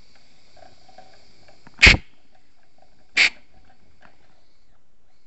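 Compressed air at the compressor tank's fitting manifold: a faint hissing air leak with a thin whistle, which stops just under two seconds in with a short sharp blast of air, followed by a second short blast about a second later.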